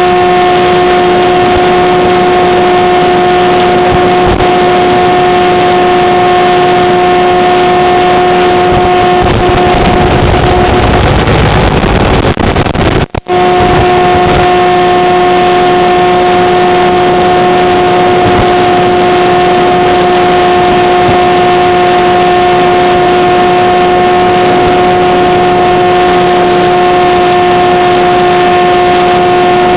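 Steady hum of a model plane's electric motor and propeller, with two held tones over a constant hiss, as carried over the FPV video link. About ten seconds in, the pitch wavers, and the sound drops out for a split second at around 13 s before it resumes.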